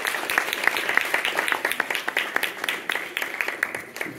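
Audience applauding, with one person's hand claps close by standing out as sharp, distinct claps over the general applause. The applause fades near the end.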